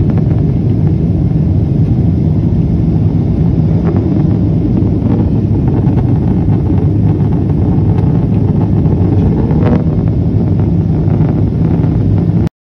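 Jet airliner cabin noise in flight: a steady rumble of engines and rushing air with a low hum underneath. It cuts off suddenly near the end.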